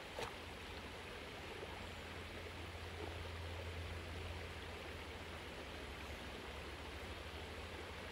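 Shallow creek water running steadily over stones, with a dog sloshing as it wades after a ball on the bottom. A single short sharp tap comes just after the start.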